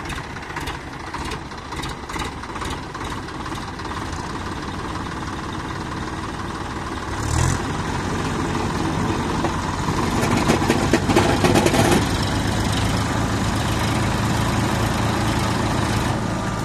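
Sonalika DI-35 tractor's three-cylinder diesel engine running hard in deep mud. It is throttled up about seven seconds in and pulses loudest a few seconds later as it works to pull free, then holds at the higher revs.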